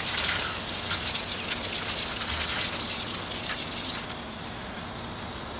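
Garden hose spray nozzle spraying water onto potting soil in plastic buckets: a steady hissing patter that grows softer about four seconds in.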